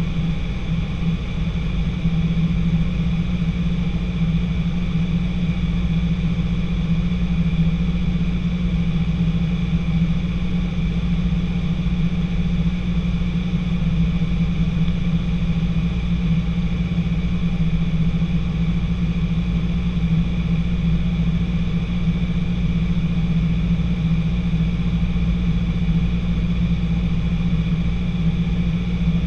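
Light training aircraft's piston engine and propeller droning steadily, heard from inside the cockpit in cruise. The drone rises slightly about two seconds in.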